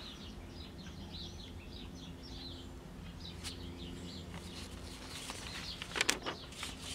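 Faint, rapid chirping of small birds over a low steady hum, with a few sharp clicks about six seconds in.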